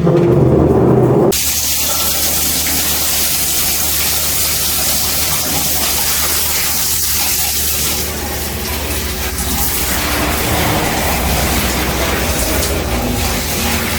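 Water running hard from a tap or pipe, a steady rushing hiss. It opens with a louder, deeper gush in the first second or so.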